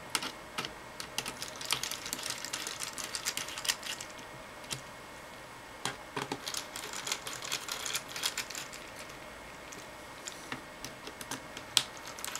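Small screws being turned into the plastic-and-metal underside of an HP TC1100 tablet with a small screwdriver: light, irregular ticks and clicks of the driver and screws, in three spells with short pauses between.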